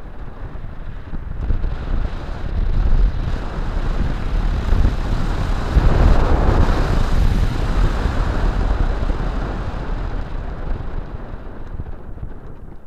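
Wind rushing over the microphone of a camera on a moving electric motorcycle. It builds to its loudest about halfway through, then dies down.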